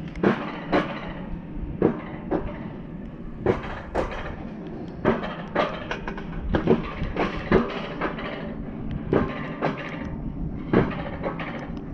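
Alpine mountain coaster sled running fast down its steel rail track: a steady rumble of the wheels on the rails, broken by sharp clacks that mostly come in pairs about half a second apart.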